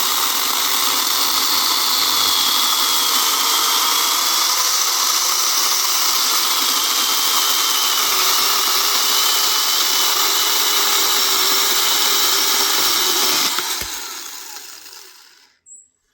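Battery-powered mini chainsaw's electric motor and chain running at a steady high whirr, then released near the end and winding down to a stop over about two seconds.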